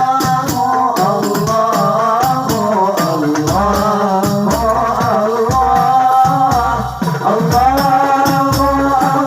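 Hadroh ensemble playing: rapid frame-drum strokes with jingles over deep drum thumps that grow heavier about three and a half seconds in, under a sung Arabic-style melody.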